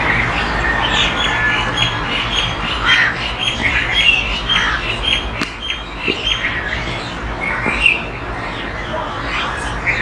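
Several birds calling over and over in short, sharp calls, over a steady low rumble of city traffic.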